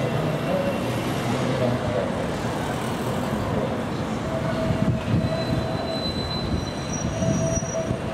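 Tram running on street track, with thin high wheel squeal coming and going over a steady background of street noise.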